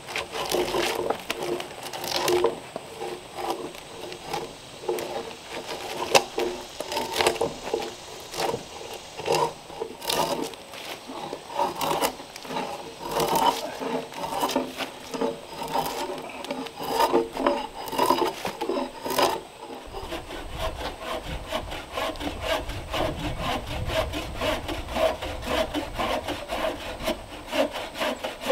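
Drawknife peeling bark off a freshly cut log: repeated scraping pulls of the blade along the wood. About two-thirds of the way through, the sound changes to a quicker, steady run of rasping strokes.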